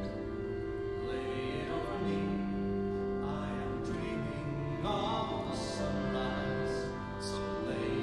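Slow live folk music made of long sustained notes, with a bowed string instrument drawing held tones over a low drone.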